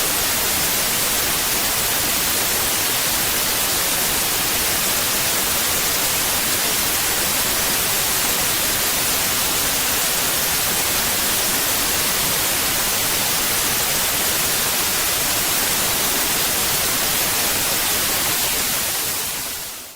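Steady synthetic white noise, an even hiss strongest in the high end, fading out over the last second or so.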